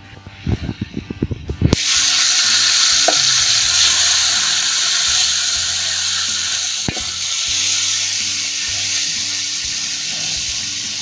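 Ginger-garlic paste and browned onions sizzling loudly in hot oil in a metal pot as they are stirred; the sizzle starts suddenly about two seconds in, after a little guitar music. One sharp knock comes near the middle.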